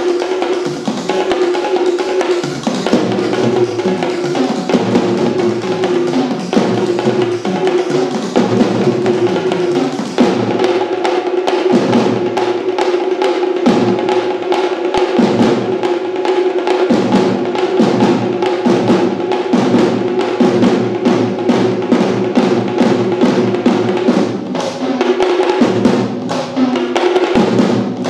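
An ensemble of Sri Lankan double-headed drums (bera) beaten together in fast, dense rhythms with rolls. A steady held tone sounds beneath the drumming.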